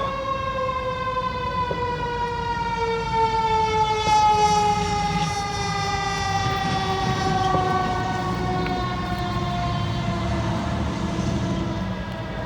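A siren sounding one long note that slowly falls in pitch, over a low rumble; it starts and cuts off abruptly.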